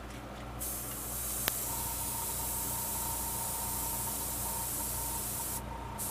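Airbrush spraying paint onto a fishing lure, a steady hiss of air that starts about half a second in, with one sharp click shortly after. A thin steady whistle sits under the hiss from about two seconds in. The spray stops briefly near the end, then starts again.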